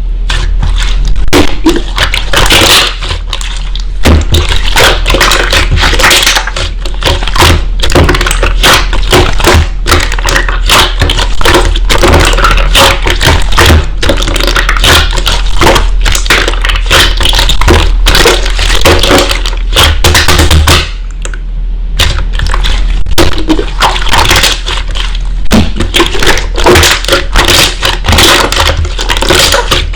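Slime being squeezed and pressed by hand, giving dense, continuous crackling and popping clicks, with a short lull about two-thirds of the way through.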